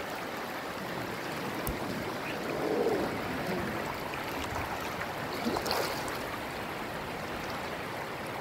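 River water rushing over and around rocks in a steady stream, with a slight swell a little under three seconds in.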